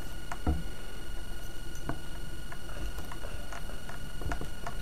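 Faint, irregular clicks and light taps of small metal and plastic parts being handled on a table, over a steady background hiss with a faint high hum.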